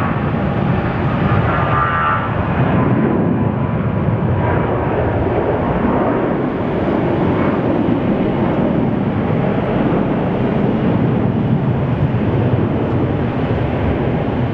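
Airbus A320-214's twin CFM56-5B turbofan engines at takeoff power as the jet rolls down the runway, lifts off and climbs away: a loud, steady jet noise, with a high fan whine that fades about two seconds in.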